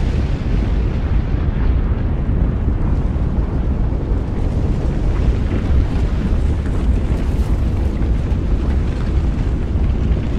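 Volcanic lava-planet ambience: a deep, steady rumble with a faint crackle above it.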